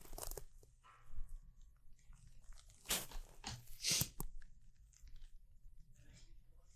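Faint rustling and crunching handling noises in a few short bursts: a pair near the start, then louder ones about three and four seconds in.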